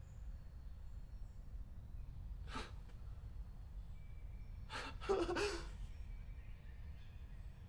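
A man's breathing: a short exhale about two and a half seconds in, then a brief breathy laugh around five seconds, over a low steady room hum.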